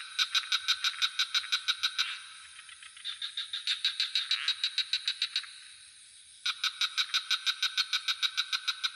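Frogs calling in rapid trains of pulses, about eight a second, three bursts of roughly two seconds each with short pauses between, one at the middle softer, over a steady high-pitched drone of insects.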